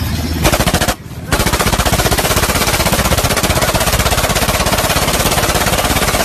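Belt-fed machine gun firing long bursts of rapid, evenly spaced shots, with a short break about a second in before the firing resumes.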